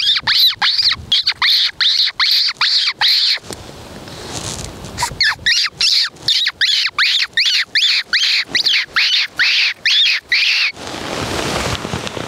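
Fox caller giving rapid, high-pitched squeaks, about three a second, in two runs with a short pause between. The squeaks mimic a distressed prey animal to lure a fox in.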